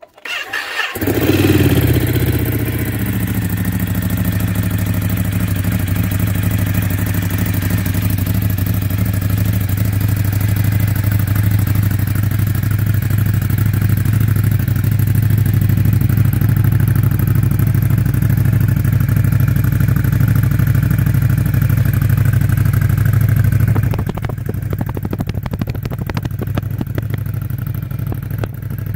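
Ducati Scrambler 1100's air-cooled L-twin, breathing through Arrow Pro-Race slip-on exhausts, is started: a brief crank, then it catches within about a second and settles into a steady idle. About four-fifths of the way in the sound drops a little and turns choppier.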